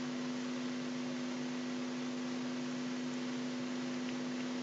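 Steady low hum with a constant hiss underneath, unchanging throughout: background noise with no speech.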